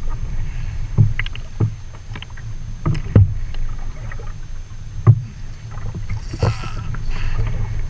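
A fishing kayak's hull on sea swell: water slapping and knocking against the plastic hull over a low steady rumble. There are several sharp knocks a second or two apart, the loudest about three and five seconds in.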